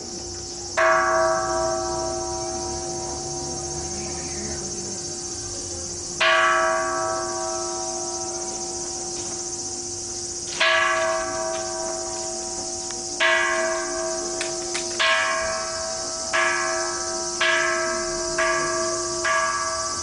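A Buddhist temple bell struck by hand about nine times, each stroke ringing and dying away, the strokes coming faster and faster toward the end: the accelerating roll that signals a service is beginning. A steady high insect drone runs underneath.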